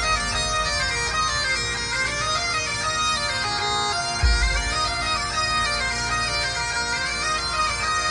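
Bagpipe music: a moving pipe melody over steady held drones, with a deep bass hit about four seconds in.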